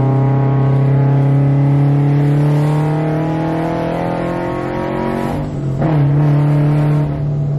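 Supercharged Scion FR-S flat-four engine pulling under full throttle, its pitch climbing steadily for about five seconds. A shift comes about five and a half seconds in, with a short whoosh from the blow-off valve venting, then the engine carries on pulling at a lower pitch.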